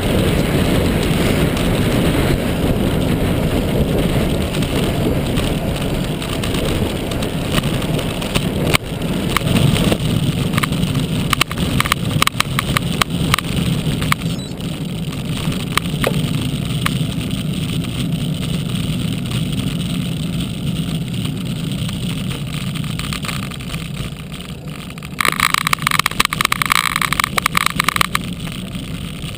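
Steady wind rush and road noise on a bicycle-mounted action camera while riding, with scattered clicks and rattles partway through. Near the end a loud rapid buzzing clatter lasts about three seconds, then stops suddenly.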